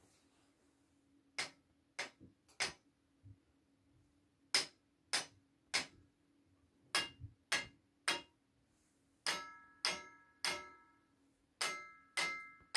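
Wooden sticks striking the metal wire rails of a clothes airer: a series of sharp taps at uneven spacing. From about nine seconds in, the taps ring with a short, bright metallic tone.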